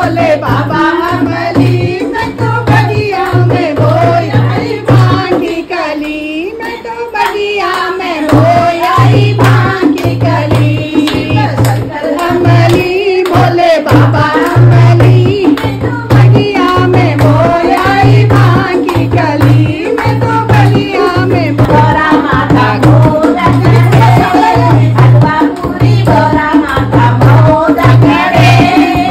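Women singing to a dholak, the drum beating a steady rhythm under the song. About six seconds in, the drum drops out for a couple of seconds, then comes back in.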